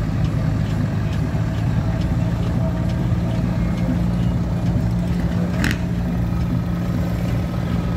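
An engine running steadily at a constant speed, with one brief high-pitched note a little before six seconds in.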